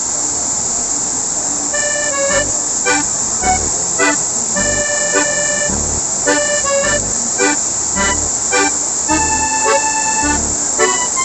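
Steady rushing noise of the waterfall's falling water. From about two seconds in, instrumental music comes in over it, with a melody of held notes and a regular low beat.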